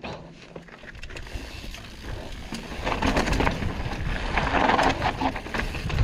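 Mountain bike rolling down a dirt trail: tyres on loose dirt, with clicks and rattles from the bike over bumps and a rushing noise, getting louder about halfway through as it picks up speed.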